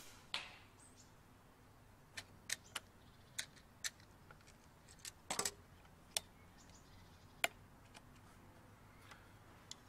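Faint, scattered light clicks and clacks of an FX Indy .22 pre-charged bullpup air rifle being handled: its cocking lever worked and its magazine taken out. A short knock comes about a third of a second in.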